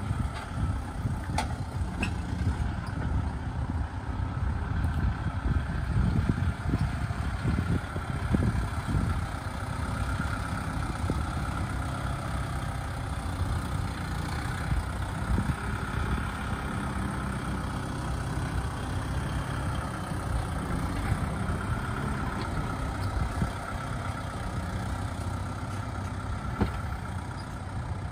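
Kubota MU5702 tractor's four-cylinder diesel engine running steadily at low speed as it pulls a heavily loaded tipper trailer.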